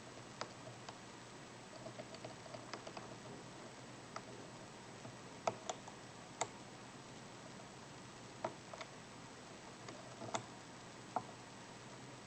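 Sparse, irregular small metallic clicks and ticks of a hook pick and tension wrench working the pins of a six-pin tumbler padlock during single-pin picking, over a faint steady hiss.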